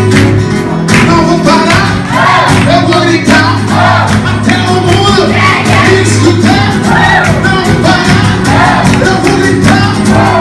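Opening of a Portuguese-language worship song: music with sustained bass notes and a bending melodic line, before the sung lyrics begin.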